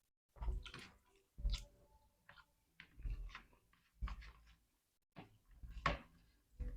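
Close-miked chewing and mouth smacking of someone eating rice and fried chicken, in short wet bursts about once a second.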